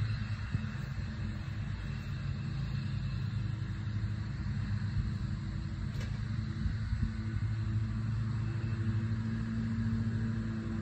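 An engine running steadily with a low, even hum and rumble.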